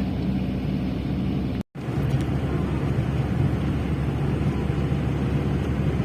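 A vehicle running steadily: a low rumble with a faint hum. The sound cuts out for an instant a little under two seconds in.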